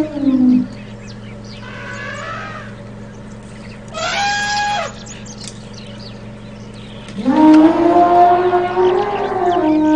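Elephant calling: a long call that ends just after the start, a fainter one around two seconds in, a short, higher-pitched trumpet at about four seconds, and another long call starting about seven seconds in. A steady low hum runs underneath.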